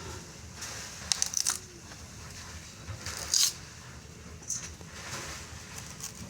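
Hands of bananas being cut from the bunch's stalk with a knife: short crunching, tearing cuts about a second in, again around three and a half seconds, and once more around four and a half seconds.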